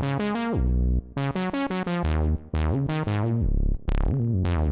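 Synth bass patch on a Nord Wave 2 played as a rhythmic line of short, punchy notes with sharp attacks, some sliding in pitch: a disco bass sound with delay and reverb.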